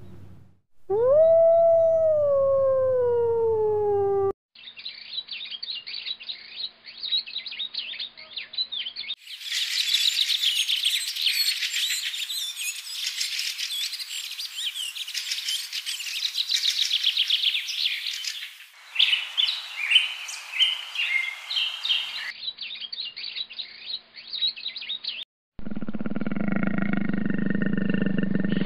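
A sequence of separate animal-sound clips: first one long howl falling in pitch, then about twenty seconds of dense bird chirping across several clips, then near the end a low roar.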